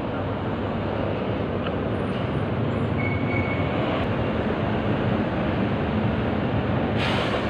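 Heavy truck hauling a shipping container driving past, a steady low engine and road rumble that grows slightly louder, with a short hiss near the end.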